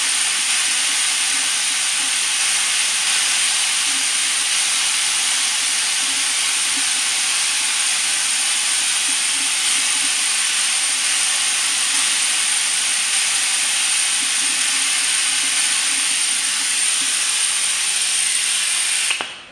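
Steady hiss of a suction fluid extractor drawing air and sludge through a thin tube from the power-steering reservoir's strainer, with a thin high whistle over it; it cuts off suddenly near the end.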